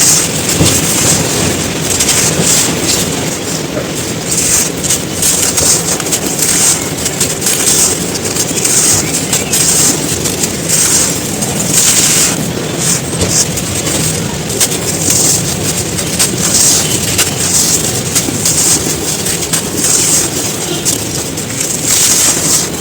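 Dry, crispy sand chunks crumbling and crunching: a dense, continuous crackle of many small snaps with no pauses.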